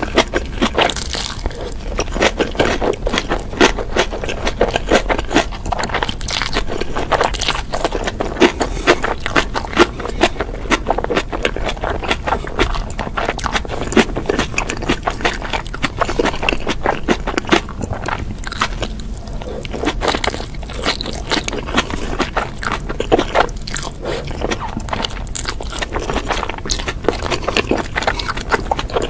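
Close-miked eating of spicy noodles: a constant patter of wet mouth clicks from slurping and chewing noodles, with wooden chopsticks scraping and tapping on a wooden board as the leftover noodles are gathered up.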